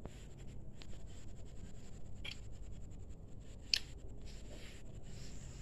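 Quiet handling noise: faint rustling with a few short, sharp clicks, the loudest about two-thirds of the way in.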